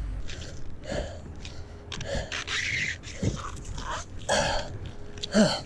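A man breathing hard in short puffs of breath, with a brief strained grunt near the end, from the effort of hauling a heavy snagged load on a magnet-fishing rope.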